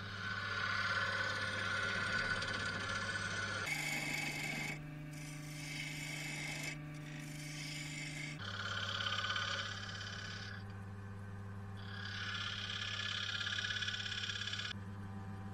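Record Power DML305 wood lathe running, with a turning tool cutting into a spinning cherry wood blank: a steady motor hum under the hiss of the cut. The sound changes abruptly several times, and the hum jumps in pitch at each change.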